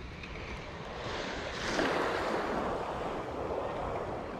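Small wave breaking and washing up the sand about a second and a half in, then fading away over a couple of seconds, over a steady low wind rumble on the microphone.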